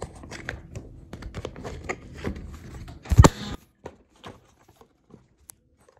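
Handling noise from a phone camera being held and adjusted: a run of small taps and rubs, then a loud rub-and-thump on the microphone just past three seconds in as the hand covers the phone, followed by a few faint clicks.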